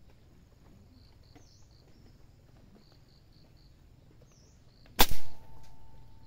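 A silenced air rifle fires one shot about five seconds in: a sharp report with a second quick hit right after it, then a brief ringing tone.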